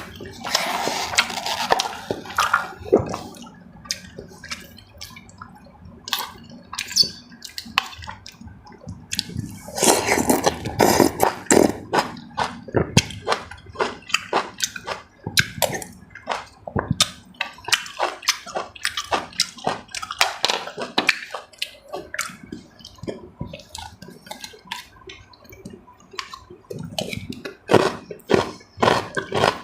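Close-up eating sounds: wet chewing and slurping, with many short clicks, and two louder wet stretches near the start and about ten seconds in.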